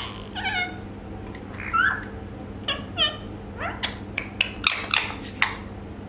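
Indian ringneck parakeet vocalizing: a string of short, pitched calls and chirps, some sliding in pitch, then a quick run of sharp clicks and a high squeak about four to five seconds in.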